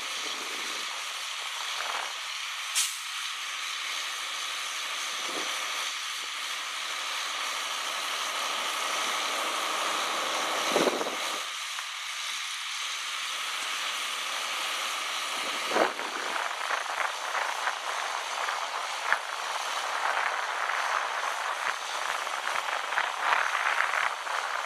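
Hydraulics of a 1997 Special Trucks Inc Badger truck-mounted boom running as the boom is raised: a steady hiss with a faint whine and a few knocks, the loudest near the middle and about two-thirds of the way in, turning into a rattling clatter after that.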